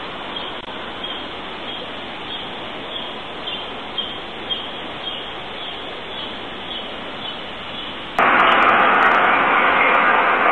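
Steady hiss from a Ring security camera's microphone, with a faint high chirp repeating about every half second. About eight seconds in it switches abruptly to a louder, harsher hiss.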